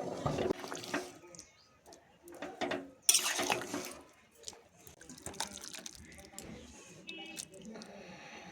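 Water pouring in short splashy bursts, three in the first four seconds, the loudest about three seconds in, followed by scattered small clicks and knocks.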